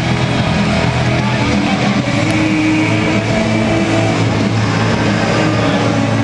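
Music played over an arena's public-address system, with sustained low notes, over the steady din of a crowd.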